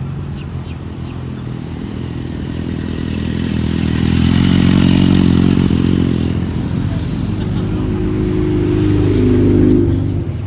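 A car engine running as it drives in close. It grows louder toward the middle, then revs with its pitch climbing and cuts off suddenly near the end.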